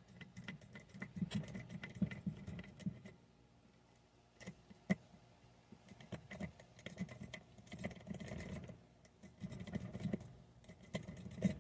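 Pick raking the pin tumblers of a Master Lock No. 3 laminated padlock under tension: faint, rapid, irregular metallic clicking and rattling, with a short pause about three seconds in.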